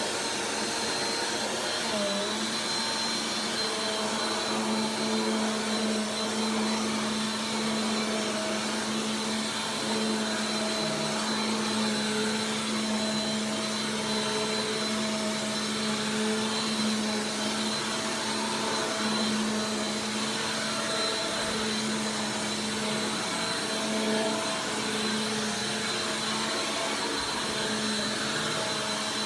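Bissell PowerForce Compact Turbo 2690 upright vacuum cleaner running steadily, a steady motor hum with a thin high whine over it.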